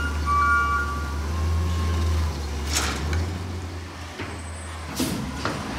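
Natural-gas Peterbilt 320 garbage truck's engine running with a steady low drone as it pulls up, with two short air hisses of the air brakes, about three seconds in and again about five seconds in.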